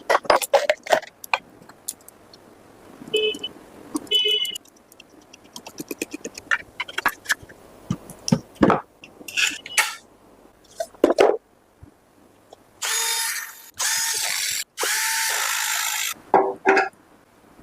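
Scattered clicks, knocks and brief squeaks of metal parts being handled during a stand fan repair, then near the end a power tool runs in two loud bursts of about a second and a half each.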